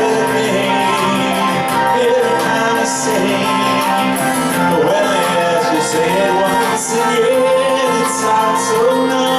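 A live band playing a song: guitar and steady chords, drums with regular cymbal hits, and a voice singing the melody.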